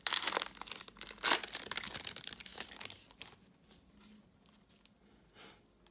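Foil wrapper of a Panini Hoops basketball card pack crinkling and tearing open in gloved hands. The sound is loudest over the first three seconds, with a sharp tear about a second in, then fades to faint rustling as the cards come out.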